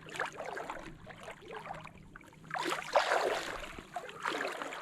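River water sloshing and splashing around legs as people wade across, in uneven surges with each stride, the loudest about three seconds in.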